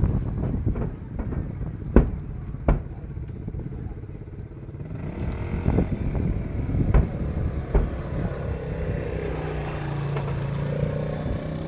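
Several sharp bangs at irregular intervals over a steady low rumble of street traffic, with an engine droning steadily near the end. The bangs are likely fireworks going off.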